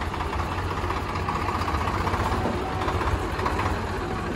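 Diesel tractor engines running steadily under heavy load, hauling trolleys of wet soil.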